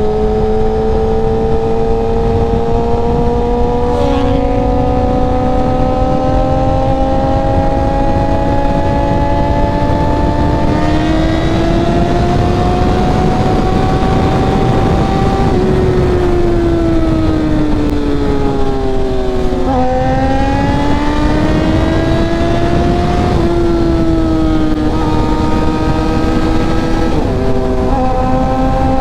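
Tuned 2014 Suzuki GSX-R1000's inline-four engine under way: it pulls slowly up through the revs, eases off and winds down about halfway through, then picks up again with two quick drops in pitch near the end that sound like upshifts. A steady rush of wind noise runs underneath.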